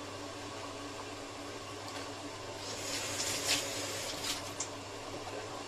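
Raw oysters being rubbed and squeezed by hand with starch and salt in a ceramic bowl to clean them, giving a few seconds of wet rubbing and small clicks about three to four and a half seconds in, over a steady mechanical hum.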